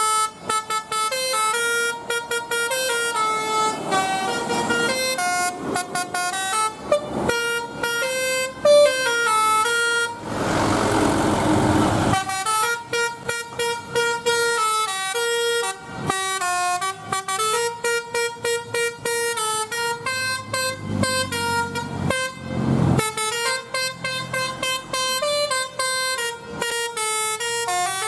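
Bus telolet horns, sets of pitched air horns, playing a fast melody of short notes that step up and down. About ten seconds in the melody stops for a rush of noise lasting about two seconds, and a shorter rush comes near the end.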